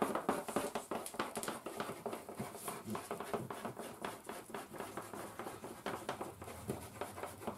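Crayons scratching on paper in many quick, short strokes as several people shade fur.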